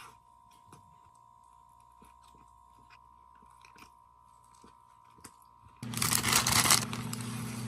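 Mostly faint for the first few seconds, with a few small clicks. About six seconds in there is a loud crunching burst of about a second, followed by a steady low hum.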